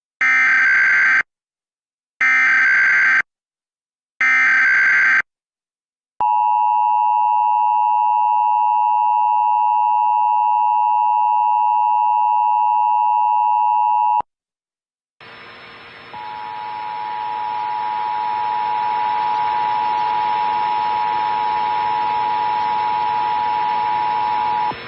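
Emergency Alert System test tones. First the digital SAME header: three one-second bursts of screechy data about two seconds apart. Then the eight-second two-tone attention signal, a steady dual tone, cuts off sharply. A steady hiss with a tone in it follows and grows louder.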